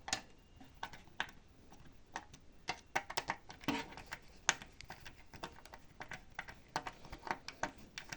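Irregular light clicks and taps from hands working a hard disk and its screws into a DVR's metal case, several every second with no steady rhythm.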